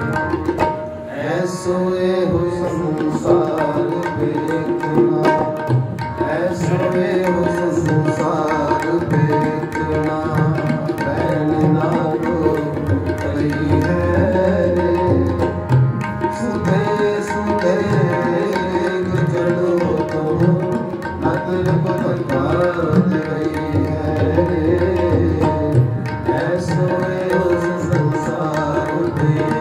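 Harmoniums and tabla playing Sikh kirtan music: steady, sustained harmonium chords over continuous tabla strokes.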